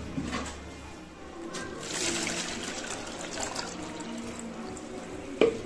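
Water poured from a plastic container into a plastic bowl, a steady splashing pour that starts about one and a half seconds in. A single sharp knock near the end.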